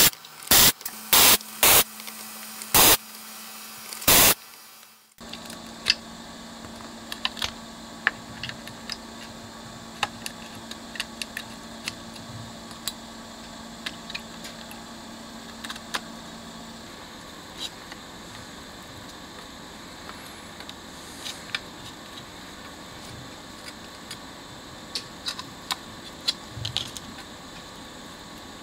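Vacuum desoldering gun sucking solder off circuit-board pads to free an audio amplifier chip: about six short, loud hisses in the first four seconds. After that, quieter handling with small clicks and taps of tools and parts, over a low steady hum that stops about two-thirds of the way through.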